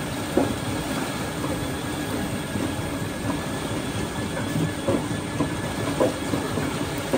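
Water gushing steadily from a pump's outflow into a channel, with the steady hum of the pumping motor under it and a few light knocks and splashes.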